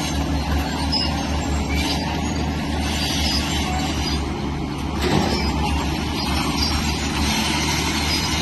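Diesel engine of a heavy tracked earthmoving machine running steadily under load, with scattered high squeaks over the low drone. The sound swells briefly about five seconds in.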